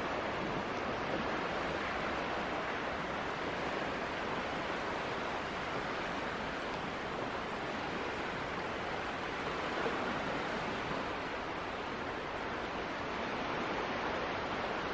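Sea waves washing on the shore as a steady, even rushing noise, with some wind on the microphone.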